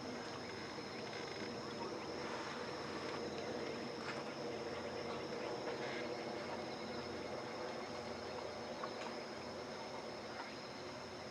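Insect chorus trilling steadily at a high pitch, with a few faint clicks.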